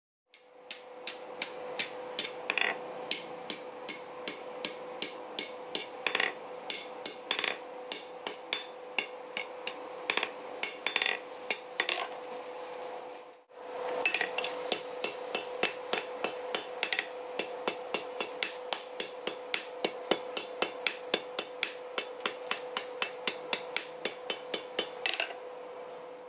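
Hand hammer striking hot steel on an anvil in a steady run of blows, roughly two to three a second, with a steady hum underneath. The sound breaks off briefly about halfway through, then the hammering resumes at the same pace.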